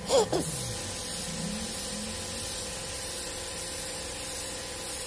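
Compressed-air spray gun hissing steadily as it sprays wood finish. The hiss starts about half a second in, right after a brief, loud squeak that falls in pitch.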